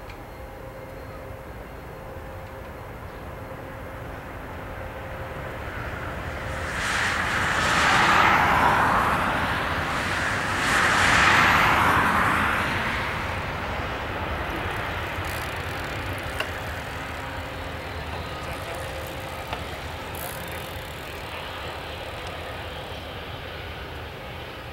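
Airbus A320 with IAE V2500 jet engines on its landing rollout: the engine noise swells up to a loud roar twice, about a third of the way in and again near halfway, as reverse thrust slows the airliner after touchdown. It then eases to a steadier, lower rush as the plane rolls more slowly along the runway.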